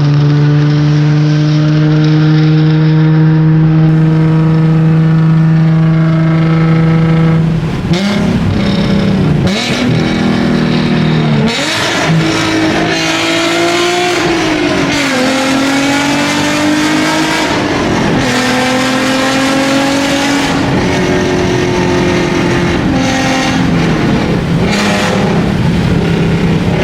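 Nissan 370Z's 3.7-litre V6 with long-tube headers and a Tomei exhaust, very loud. It holds a steady engine speed for about the first seven seconds, then is revved, its pitch climbing and dropping sharply several times.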